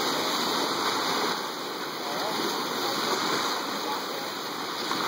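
Ocean waves washing in, a steady rush of water.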